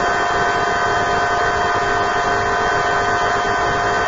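A loud steady hum with hiss, holding several fixed pitches unchanged throughout.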